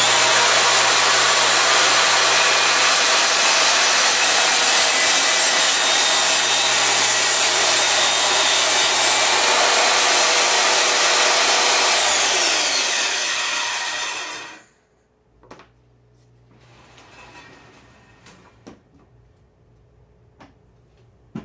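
Homemade table saw running at full speed for about twelve seconds during a test cut on a crosscut sled. It is then switched off and winds down, its whine falling in pitch and stopping about fourteen and a half seconds in. A few light knocks follow.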